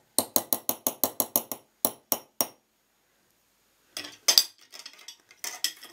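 A small spoon tapping fast against a glass jar: an even run of sharp clinks, about six a second, slowing to three last taps and stopping about two and a half seconds in. After a short silence there are looser clinks of tableware with one louder knock.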